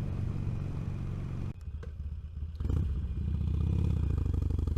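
Motorcycle engine and wind noise at highway speed, picked up by a helmet-mounted external microphone on an action camera. About a second and a half in, the sound drops sharply. It comes back with a click about a second later, louder, as the microphone gain setting is switched up.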